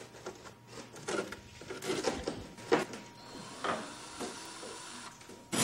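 Hand-held cordless drill whirring steadily for a couple of seconds, then a loud burst near the end as it runs again. Before it, irregular light knocks and scrapes of hand work on the boat.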